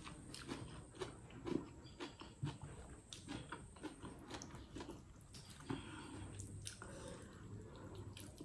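Faint eating sounds: fingers mixing rice and vegetables on a plate, with scattered small clicks and chewing.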